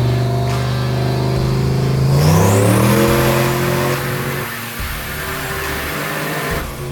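Turbocharged 6.0 L Chevy V8 truck engine under load on a chassis dyno. It runs at a steady pitch, then revs up about two seconds in, and a high turbo whistle rises with it and then holds.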